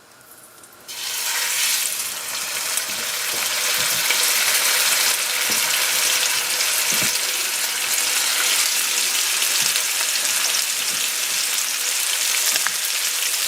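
Chicken breasts seasoned with salt and pepper laid into a hot oiled pan, searing: a loud frying sizzle starts suddenly about a second in and then holds steady.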